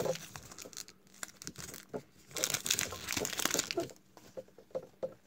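Crinkling of plastic trading-card pack wrappers being handled, loudest for a second or so in the middle, with small clicks between.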